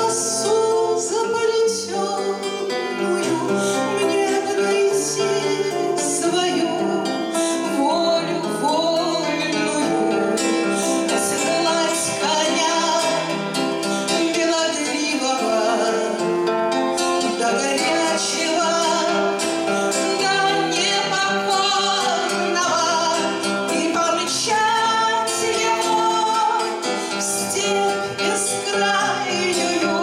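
A woman singing a bard-style song to her own strummed classical guitar.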